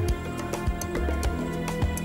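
Background music: sustained held chords over a steady light ticking percussion, about four beats a second, with soft low thuds.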